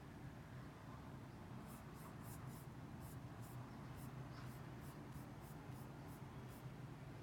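Fingertips swiping repeatedly across a MacBook Pro's glass trackpad in two-finger scroll strokes: a quick run of faint, short, high swishes, about two or three a second, starting a couple of seconds in, over a low steady hum.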